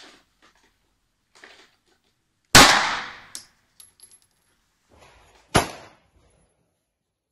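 Two pistol shots from a Walther PPQ Q4, about three seconds apart, the first with a long echoing tail. A few light metallic clinks follow the first shot.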